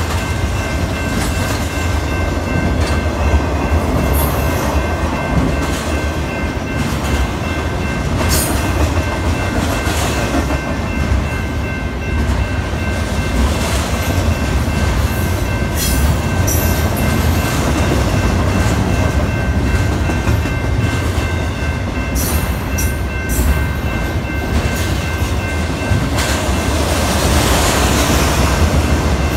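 Double-stack intermodal container train rolling past a grade crossing: a steady rumble of wheels on rail with scattered clacks and brief high squeals. The crossing's warning bell rings throughout as a steady high tone.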